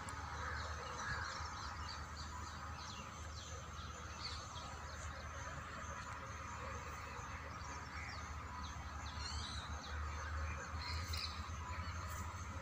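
Birds chirping and calling in scattered short notes, over a steady low rumble.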